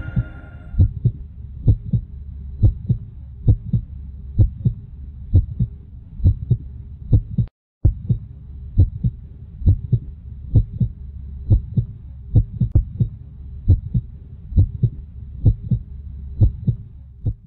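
Heartbeat sound effect: a steady double thump repeating a little under once a second over a low hum, cutting out for a moment about halfway through.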